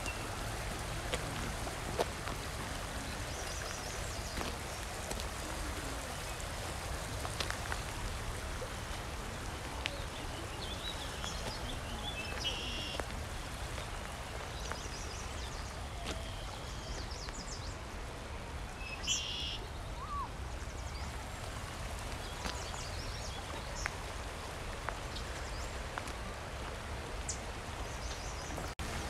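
Shallow river flowing over rocks with a steady rushing, and small birds chirping now and then through it.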